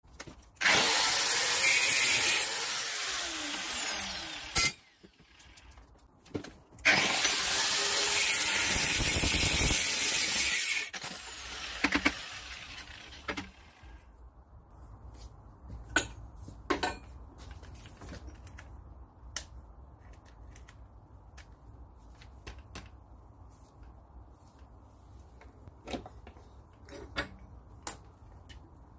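Angle grinder grinding in two spells of about four seconds each, with its pitch falling near the end of the first; the second spell fades out over a few seconds as the worn-out grinder gives up for good. After that, only scattered knocks and clinks of tools being handled.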